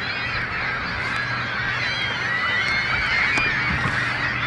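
A large flock of water birds calling over one another in a dense, continuous chorus of short calls, with a steady low hum underneath.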